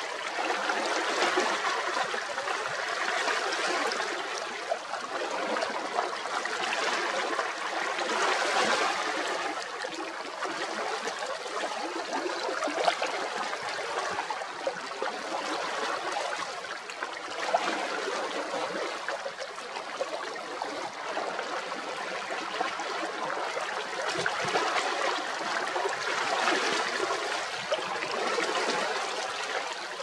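Small sea waves lapping and splashing against a rocky shoreline, a steady rush of water that swells and eases every few seconds.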